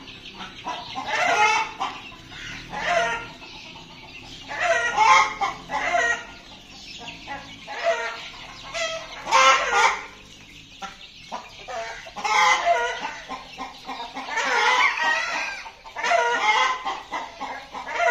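A flock of young Kadaknath chickens calling and clucking, loud calls following one another every second or two.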